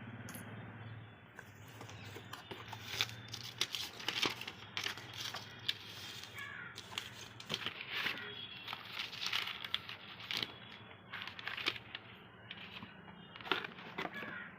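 Crinkling and rustling with many scattered light clicks and knocks, as of material being handled. No motor is running.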